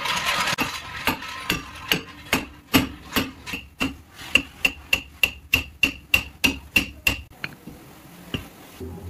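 Hammer blows on a Maruti Suzuki Alto's rear brake drum, a steady run of about twenty ringing strikes at roughly three a second, knocking the drum loose from the hub. A brief scraping rattle comes before the blows, and they stop a little before the end.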